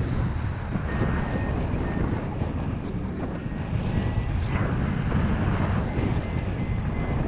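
Airflow rushing over the camera microphone of a paraglider in flight, a steady loud rumbling wind noise.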